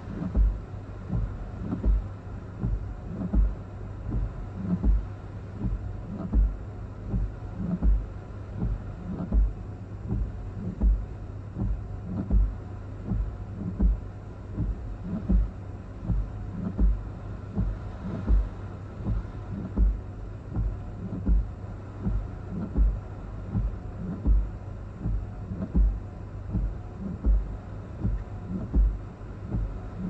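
Windshield wipers sweeping back and forth, a low thump about every second and a half with lighter knocks between, over a steady low hum.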